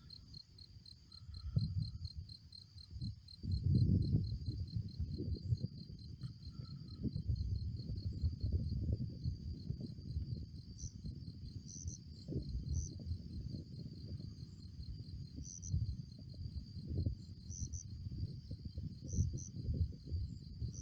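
Night chorus of crickets: a steady, fast-pulsing high trill, over an irregular low rumbling noise that swells about four seconds in.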